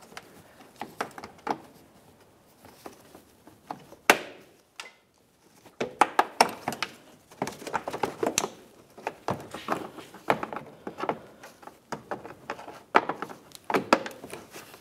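A pick and a flat pry tool working at the plastic locking tabs of a Ford Transit Connect's lower air deflector: scattered clicks and knocks of tool on plastic, with one loud sharp click about four seconds in and a denser run of clicks from about six seconds in.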